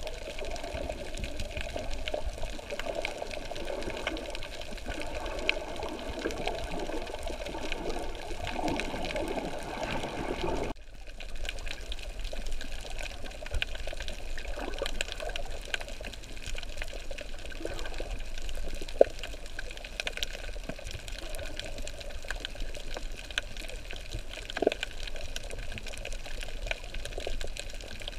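Water sloshing and rushing around a snorkeler's camera, with scattered faint clicks and crackles. About eleven seconds in the sound changes abruptly, the lower rush dropping away and leaving a thinner hiss with clicks.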